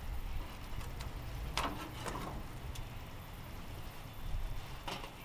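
Metal spatula and tongs scraping and clicking against a gas grill's grate and a tray as grilled fish fillets are lifted off, a handful of short strokes over a low steady rumble.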